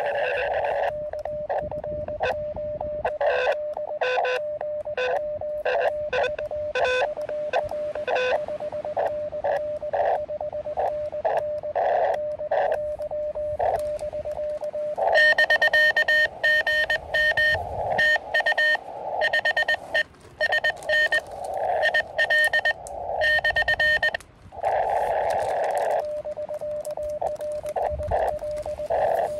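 Morse code (CW) from an Elecraft KX2 QRP transceiver on 20 meters: a single steady tone keyed on and off in dots and dashes over band hiss. About halfway through, a louder, harsher run of keying takes over for some nine seconds, then the fainter tone and hiss return.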